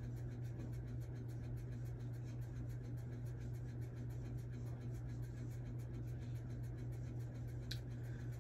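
Quiet room tone with a steady low hum, and a single faint click near the end.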